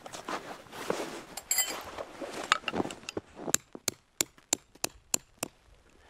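Tarp fabric rustling and scuffing, then about eight sharp taps at an even pace of roughly three a second: a tent stake being hammered in.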